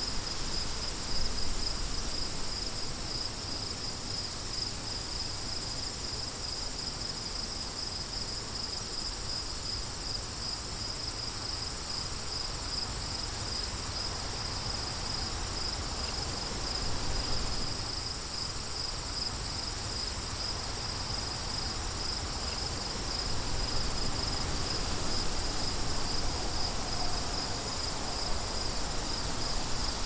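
Crickets chirping in a steady, fast-pulsing chorus, with a fainter higher insect band above it. Underneath is a low wind rumble on the microphone that grows louder near the end.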